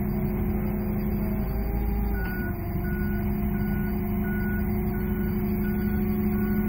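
Toyota forklift engine running steadily as the forklift backs up, towing a pickup truck lifted by its rear wheels. From about two seconds in, its reversing alarm beeps at an even pace, about three beeps every two seconds.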